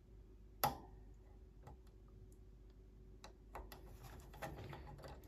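Faint, irregular clicks and taps of multimeter test probes against small resistors on a circuit board, with one sharper click about two-thirds of a second in.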